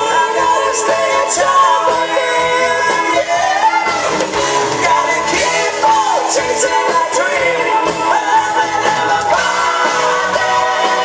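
Live rock band playing, with a male lead singer belting into a handheld microphone over the band; the vocal line slides between notes.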